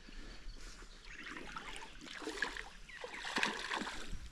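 Faint splashing and trickling of river water, with a few light knocks about three and a half seconds in.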